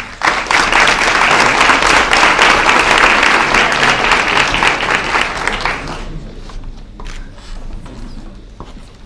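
Audience applauding, starting suddenly and dying away after about six seconds.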